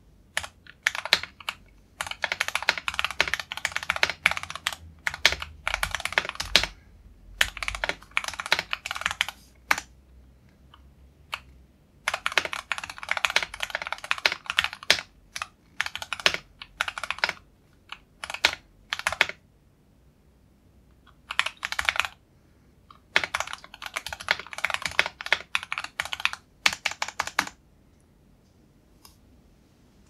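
Typing on a custom 64-key mechanical keyboard with lubed Gateron Ink Black linear switches, an aluminium plate and a foam-dampened wooden case: quick runs of key clacks in bursts of a few seconds with short pauses between them. It stops a couple of seconds before the end.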